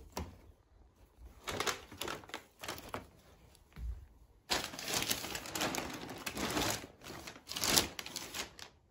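Thin plastic bags rustling and crinkling as hands rummage through them. The sound comes in irregular bursts, sparse at first and then dense and louder in the second half.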